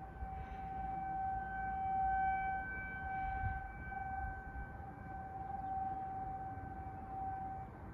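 Outdoor warning siren sounding a steady tone in a routine siren test, swelling and fading in loudness as it sweeps around.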